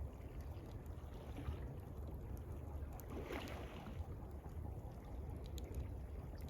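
Campfire crackling, with scattered small pops, over a steady low rumble of gently lapping water. About halfway through there is a brief, louder wash of water.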